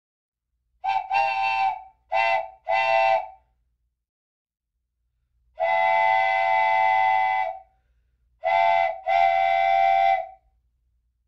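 Chord whistle like a train whistle sounding in a pattern of blasts: about four short toots, then one long blast of about two seconds, then two more toots.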